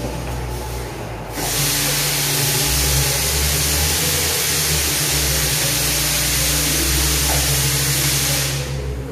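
A small electric motor runs with a loud, steady hissing whir over a low hum. It starts about a second and a half in and cuts off suddenly near the end.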